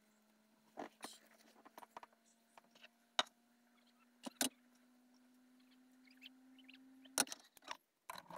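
Steady low hum from a small motor or appliance, rising slightly in pitch and stopping abruptly about seven seconds in, with scattered light knocks and clicks of things being handled.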